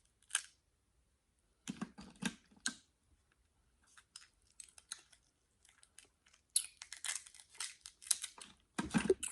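Crab and lobster shells cracking and crackling as they are broken apart, in irregular bursts of sharp clicks with short pauses between and a heavier crack near the end.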